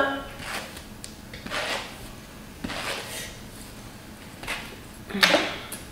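Comb drawn through a long wig's hair on a mannequin head: about five separate swishing strokes, with a louder bump near the end.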